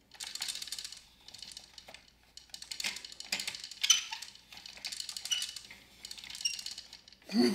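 Small plastic gears of a Downspin game unit clicking as a key is turned through them: a steady run of irregular light plastic clicks and ticks, with a few brief high pings.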